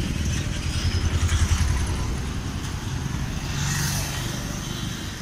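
Road traffic: a motor vehicle passing close by, its low engine rumble swelling about a second in and fading, with another engine hum near the end.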